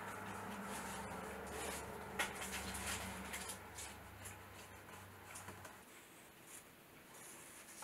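Chalk and a marker scratching lightly along the edge of a paper pattern laid on fabric, with small paper rustles and clicks. A low steady hum sits under it and cuts off about six seconds in.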